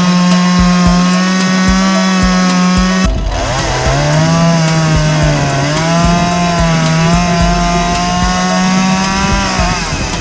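Gas chainsaw cutting through rotten wooden floor joists. It runs at high, steady revs, dips sharply about three seconds in, then holds at a lower, wavering pitch as it labours in the cut, easing off near the end.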